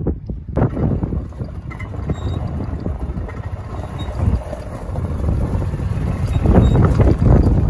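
Wind buffeting the microphone, an uneven low rumble that swells and fades, strongest near the end.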